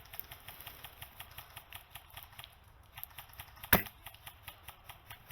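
Airsoft gunfire: a run of light, rapid clicks, with one much louder, sharp shot about two-thirds of the way through.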